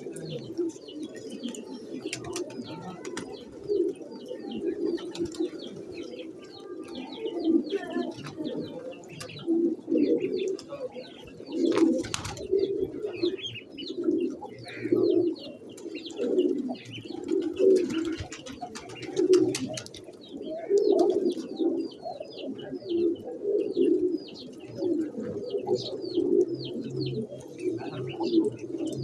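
Birds calling continuously: low, pulsing calls repeat about once a second, with many quick, high chirps over them.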